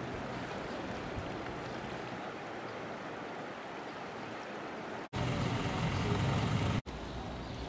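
Steady rushing of a swollen, muddy river in flood. About five seconds in it cuts abruptly to a louder, deeper rumble of traffic for under two seconds, then cuts again to a quieter steady hiss.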